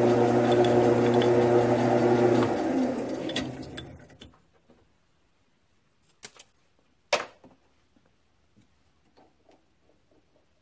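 Grizzly G9972Z bench lathe running with a steady hum, then switched off about two and a half seconds in and spinning down to a stop over the next two seconds. After that come a couple of light clicks and one sharp click.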